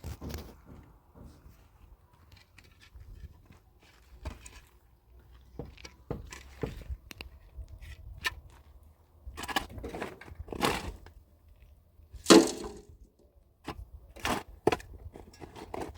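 A string of irregular knocks and clatters with pauses between them, the loudest about twelve seconds in.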